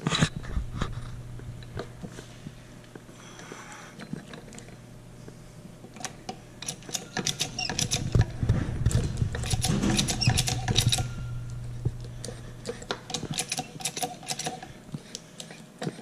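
Metallic clicking and rattling from an X-Pander hose coupling expander as its threaded expanding unit is handled and its pump handle is worked, in clusters of quick clicks, with a knock at the start. A steady low hum runs underneath and stops about three-quarters of the way through.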